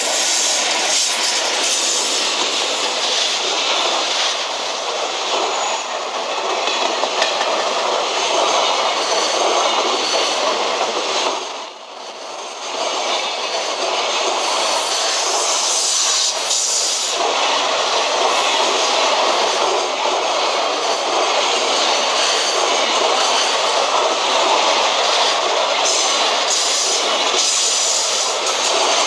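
Container freight train passing close by behind an electric locomotive: steady loud noise of the wagons' wheels running on the rails, which dips briefly about twelve seconds in.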